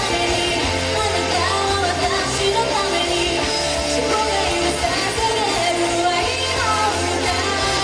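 Japanese pop-rock song: a woman singing over a steady bass line and full band backing, played loud.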